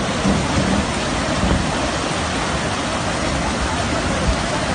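Heavy rain and flash-flood water rushing through a wadi: a loud, steady rushing noise.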